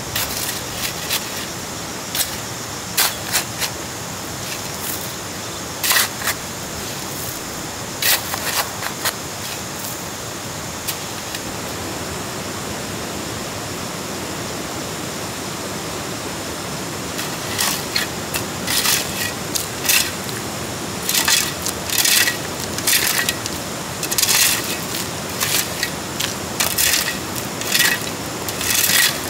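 Short clattering and scraping sounds of objects being handled, a few at first and coming thick and fast in the second half, over a steady background hiss.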